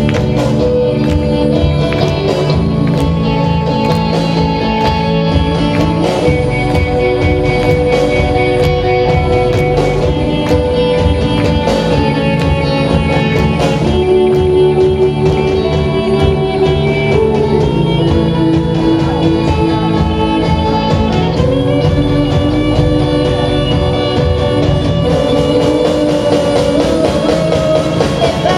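Live band playing a rock song: guitars and bass over a steady drum beat, loud throughout.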